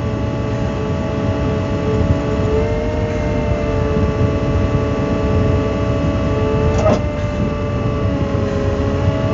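Volvo EW160A wheeled excavator's diesel engine running under hydraulic load as the rotortilt and grapple move a stone, a steady drone with tones that shift slightly in pitch. A single sharp knock comes about two-thirds of the way through.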